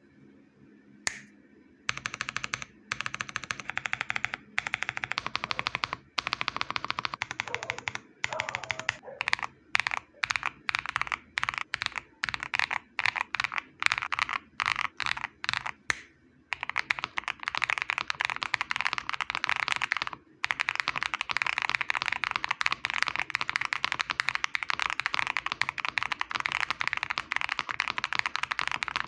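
Typing on a GMK67 custom mechanical keyboard with hand-lubed Akko Cream Yellow linear switches and foam-dampened case: a single keystroke, then fast runs of typing, then separate key presses about two a second, then steady fast typing with one short pause.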